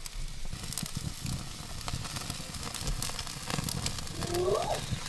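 Braai fire with steak on the grill, crackling and sizzling: irregular sharp pops over a steady hiss. A brief wavering call sounds about four seconds in.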